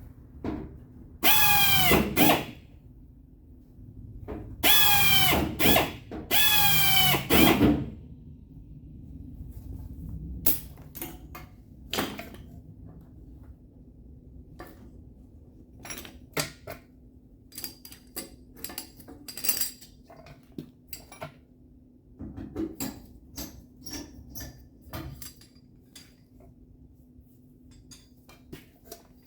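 A power drill runs in three short bursts, drilling holes in the truck's sheet-metal quarter panel, its whine bending in pitch as it spins up. After that come scattered light clicks and knocks of tools being handled.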